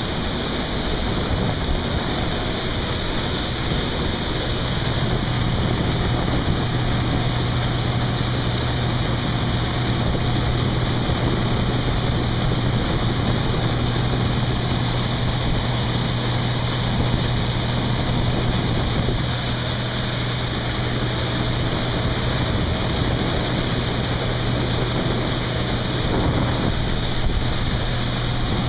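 Harvest machinery running steadily in the field: a steady engine drone with a broad rushing noise. The low drone comes in about four seconds in.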